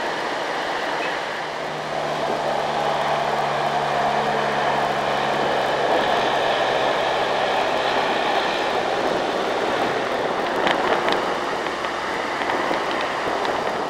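Diesel engines of loaded Mitsubishi Fuso dump trucks pulling up a long incline as they pass, with tyre and road noise. A steady engine note for the first few seconds gives way to a broader rumble, with a couple of short clicks near the end.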